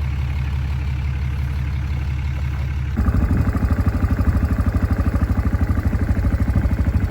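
A vehicle engine idling with a steady low hum. About three seconds in it turns abruptly louder and rougher, with a fast even pulsing.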